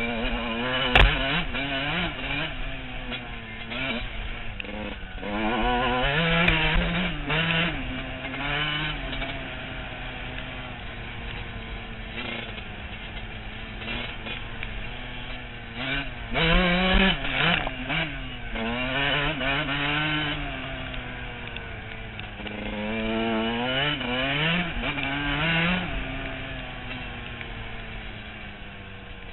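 Dirt bike engine revving up and down as it is ridden along a muddy trail, its pitch rising and falling with the throttle and gear changes, with the strongest bursts of throttle about six and seventeen seconds in. A sharp knock about a second in.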